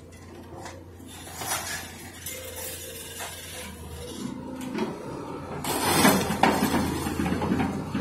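Scrap metal scraping and clattering as a hydraulic grapple grabs and moves a load off a trailer, over a machine's steady hum. The loudest crash of clattering metal comes about six seconds in.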